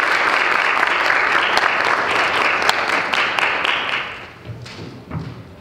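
Audience applauding, the clapping dying away about four seconds in, followed by a soft low thump near the end.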